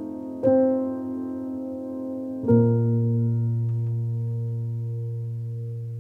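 Gentle background piano music: a chord struck about half a second in, then another about two seconds later that is held and slowly fades away.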